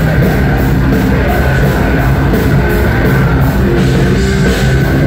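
Heavy metal band playing live and loud: distorted electric guitars and a drum kit, with cymbals keeping a steady beat.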